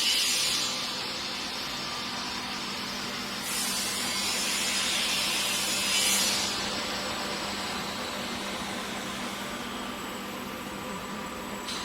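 Welding arc of an automatic pipe welding machine hissing and crackling steadily, growing louder for a few seconds midway, over a faint steady machine hum.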